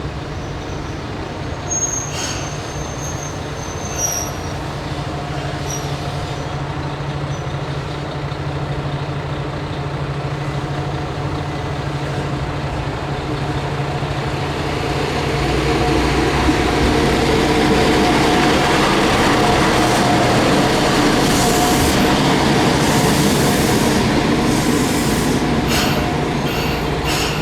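MRT300-series diesel railcar running into a station, its engine drone and wheel noise growing louder about halfway through as it passes close, then easing near the end as it comes to a stop, with high wheel and brake squeal.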